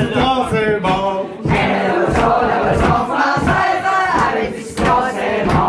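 A group of party guests singing and shouting along together, several voices at once, with a man's voice through a microphone among them.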